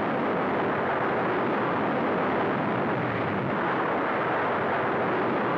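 Redstone rocket engine at liftoff: a loud, steady rushing noise that keeps an even level throughout.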